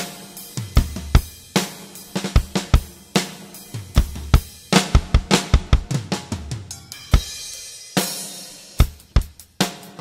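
Acoustic drum kit played solo: bass drum, snare and toms in quick fills mixed with hi-hat and Sabian cymbal hits. A crash cymbal rings out about eight seconds in, followed by a fast run of strokes near the end.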